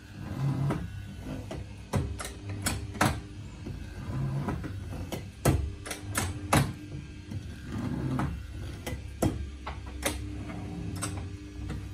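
Uchida VS-25 electric paper drill running with a steady hum while the drill head is brought down through the card and the table is slid between hole positions. About a dozen sharp clicks and knocks come at irregular intervals as the table snaps into its stops and the lever moves.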